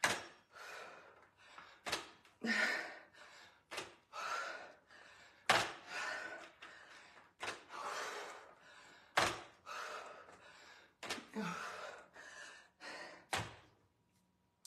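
A pair of adjustable dumbbells knocking down on the floor about every two seconds in a run of sumo deadlift high pulls, each knock followed by a sharp breath from the lifter.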